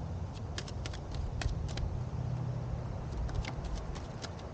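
Tarot cards being shuffled by hand: a run of quick, light card clicks at irregular intervals, over a steady low rumble.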